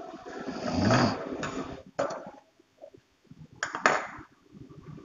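Work at a Juki industrial sewing machine: a rough, rumbling swell about a second in, then sharp clicks about two seconds in and twice in quick succession near four seconds.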